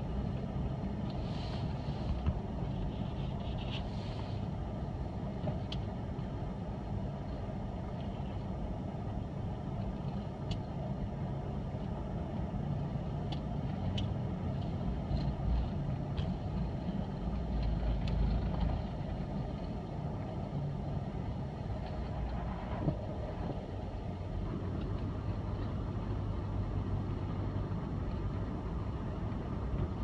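Steady low rumble of a vehicle's engine and tyres heard from inside its cabin, with a few faint clicks.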